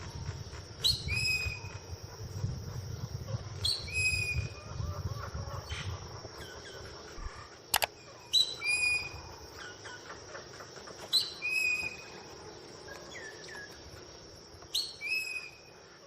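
A bird calling, repeating a short phrase of a few notes that step down in pitch, about every three seconds, over a steady high-pitched background hiss. A single sharp click sounds a little before the middle.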